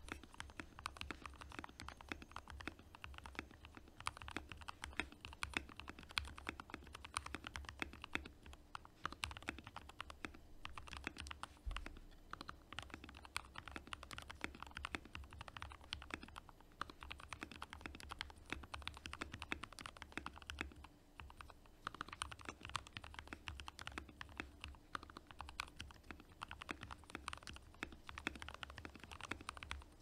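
Fast, continuous typing on an NK65 65% mechanical keyboard with lubed Gateron Milky Yellow linear switches and OEM-profile PBT keycaps, making a dense stream of keystroke clacks. The typing eases off briefly about eleven seconds in and again around twenty-one seconds.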